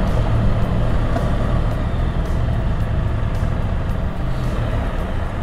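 Can-Am Spyder three-wheeled motorcycle under way, its engine running steadily with a continuous low rumble and road noise.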